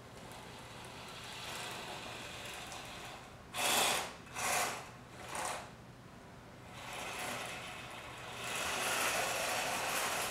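Small robot car's electric drive motors whirring as it drives across a wooden floor, the speed rising and falling under PWM joystick control. Three short louder bursts come about halfway through, then a longer louder run near the end.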